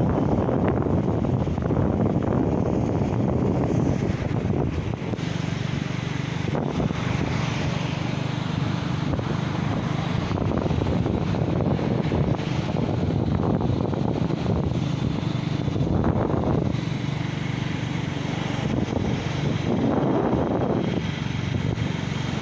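Wind buffeting the microphone, a steady low rumbling noise with faint swells.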